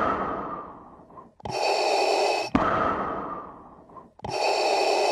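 Darth Vader's mechanical respirator breathing, looping evenly about once every three seconds. Each breath is a loud rasping hiss cut off by a sharp click, then a second hiss that fades away. The sound effect was made by breathing through a scuba regulator.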